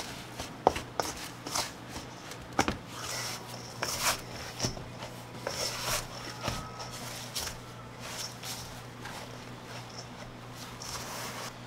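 Gloved hands working crumbly flour dough in a stainless steel mixing bowl: at first a plastic scraper clicking and scraping against the bowl, then rustling and pressing as the dough is squeezed together by hand. A faint low hum runs underneath.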